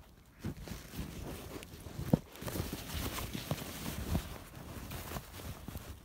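Footsteps and rustling in dry fallen leaves and grass: soft, irregular thumps with one sharper knock about two seconds in.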